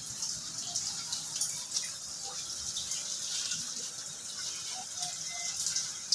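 Steady hiss of running, splashing water.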